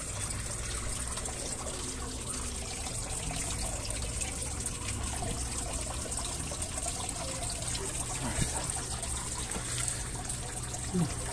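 Steady trickle and splash of a thin stream of water falling from a pipe into a fish tank.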